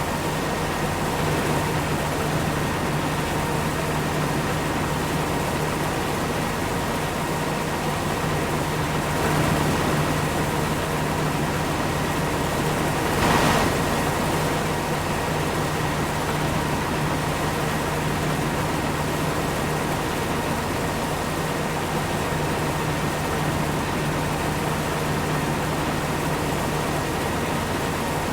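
Corn-harvesting machinery running steadily: a constant engine drone with a steady high whine over it, and a brief louder rush of noise about halfway through.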